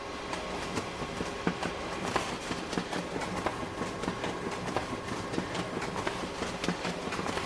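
Photocopier running, its motor humming steadily under a fast, uneven run of mechanical clicks and clacks, as when it is feeding and copying sheets.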